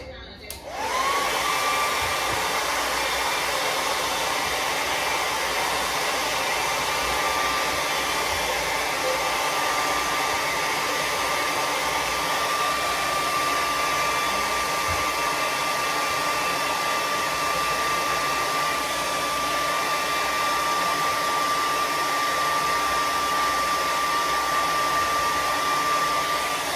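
Handheld hair dryer switched on about a second in, its motor whine rising quickly to a steady pitch, then running steadily with a rush of air until it is switched off at the end.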